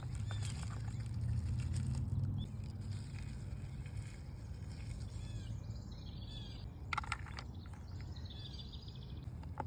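Small birds chirping in short high calls, mostly in the second half, over a steady low rumble. A brief scratchy noise comes about seven seconds in.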